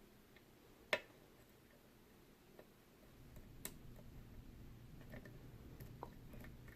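Faint metal clicks and ticks of a short pick hook working the pins of a vintage Yale & Towne safe deposit box lock under tension, with one sharper click about a second in and a few smaller ticks later.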